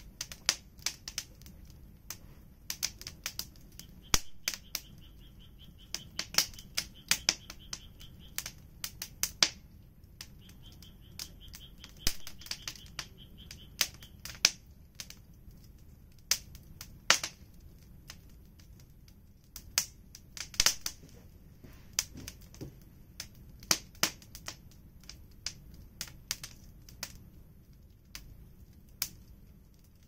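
Wood fire crackling: irregular sharp pops and snaps from the burning firewood. A faint high whistle comes and goes twice in the first half.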